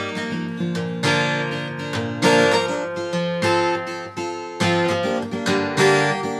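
Acoustic guitar strummed in a steady rhythm, playing the chord introduction to a song.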